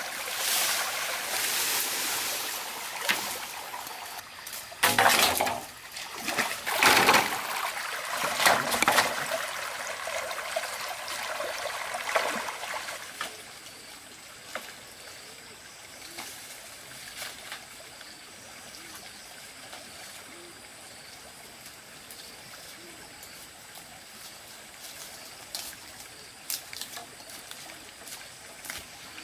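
Leafy bamboo stalks being pulled and dragged through dry leaves and undergrowth: loud rustling and crackling, with a few strong surges around five to nine seconds in. After about thirteen seconds it drops to a soft, steady stream trickle with occasional small snaps.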